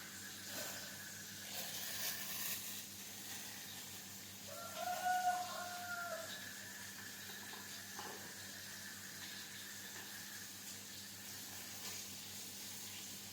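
A rooster crowing once, about five seconds in, over a faint steady background with a few light knocks.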